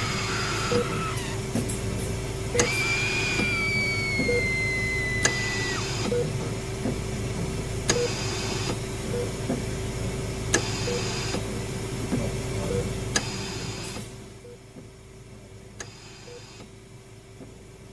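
Layered horror sound-effect ambience for a haunted hospital: a steady electrical hum and low rumble, a soft beep repeating about every second, and occasional sharp clicks. A high wail slides slowly downward for about three seconds early on, and the low rumble drops away about fourteen seconds in.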